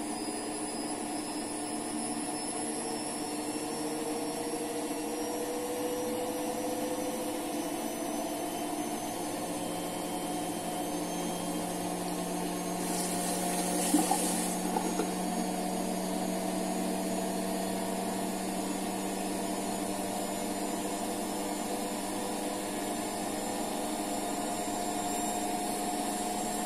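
Steady hum of a small motor, its several tones drifting slowly upward in pitch, with a brief hiss about thirteen seconds in.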